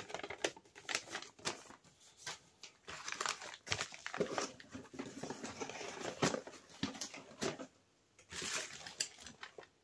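Paper wrapping and a plastic mailer rustling and crinkling as they are handled and unpacked, with irregular light knocks and brief pauses.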